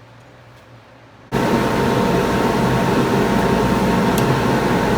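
Rikon 10-305 bandsaw running: a loud, steady whir that comes on abruptly about a second in and holds even.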